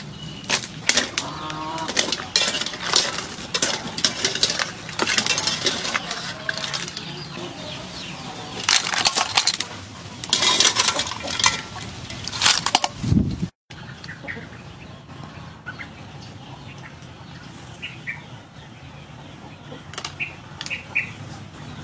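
Razor clams splashing and clattering in a pot of boiling water, a dense run of loud wet crackles. After a sudden break about two-thirds of the way in, quieter handling with a few short bird chirps.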